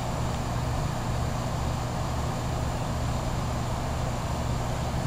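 Outdoor heat pump condensing units running together in cooling mode: a steady low compressor hum under the even whoosh of the condenser fans.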